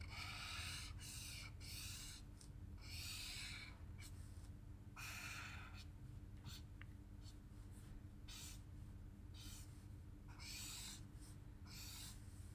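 Winsor & Newton ProMarker alcohol marker stroked across paper while blending greys: a faint run of short, irregular scratchy swishes, one after another with small gaps.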